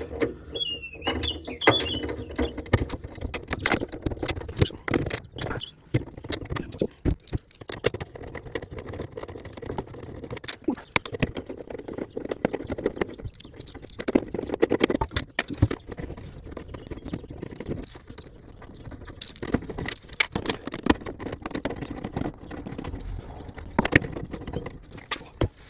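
Ratchet and socket clicking in quick irregular runs as the 8mm bolts of the air-suspension compressor cover are undone, with knocks and rattles from handling the cover and bolts.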